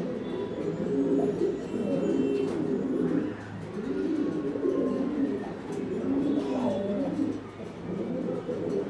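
Domestic pigeons cooing almost without a break, the coos overlapping one another. A cock pigeon is puffed up and bowing, so this is courtship bow-cooing.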